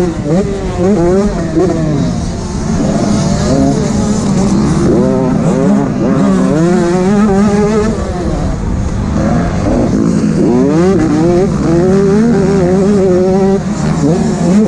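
An 85cc two-stroke motocross bike's engine, heard close up from the rider's own machine, revving hard at racing speed. Its pitch climbs and drops again and again, every second or two, as the throttle is opened and shut and the gears change through the track's corners and jumps.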